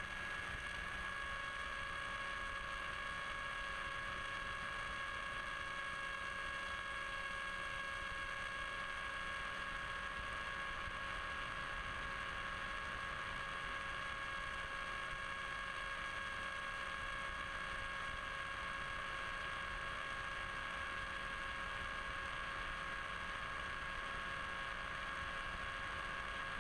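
Electric motor and propeller of an RC plane running steadily under power, heard from a camera on board as a constant whine over steady rushing air noise. A second, lower whine tone joins about a second in.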